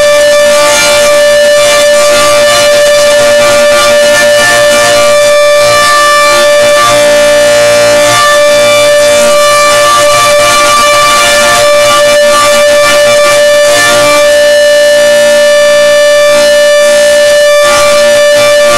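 Outdoor tornado warning siren sounding one steady, unwavering tone during a siren test, very loud and close to overloading the recording.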